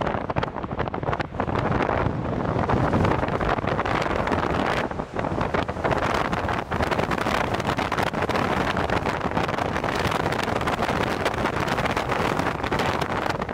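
Storm-force gusting wind buffeting the microphone in a loud, rough, fluttering rush, with the jet engines of airliners on approach mixed in underneath.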